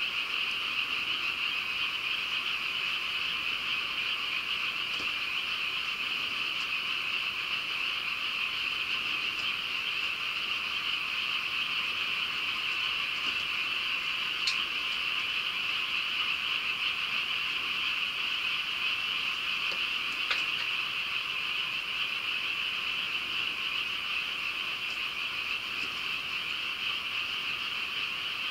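A dense, steady chorus of many frogs calling, with two faint clicks in the middle.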